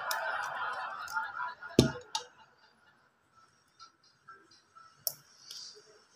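A stretch of music and voices cuts off with a loud sharp click just under two seconds in. After it, faint scattered clicks of a small screwdriver working the screws on the plastic base of a Doss Bluetooth speaker.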